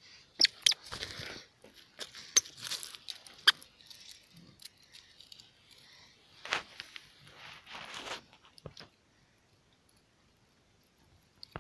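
Dry cotton plants and leaves rustling and crackling as a small child picks cotton bolls, with sharp snaps and clicks in irregular bursts; it falls quiet for the last few seconds.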